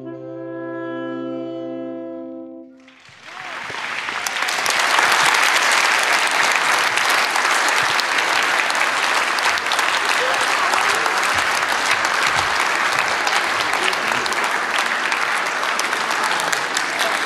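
Saxophone trio of two alto saxophones and a tenor saxophone holding a final chord, which stops about three seconds in. An audience then breaks into steady applause.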